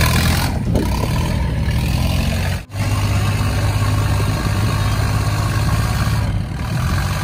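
A wooden boat's engine running steadily as the boat gets under way, a low drone with an even rushing hiss over it. The sound drops out for an instant a little under three seconds in.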